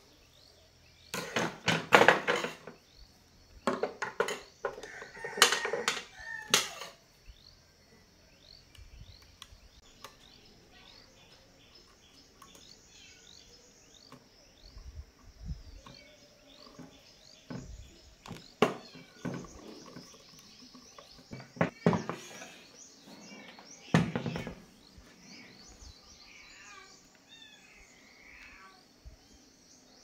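Intermittent knocks and clatter of hard objects being handled, a cluster of them in the first seven seconds and a few more later. A steady high chirping of insects runs underneath.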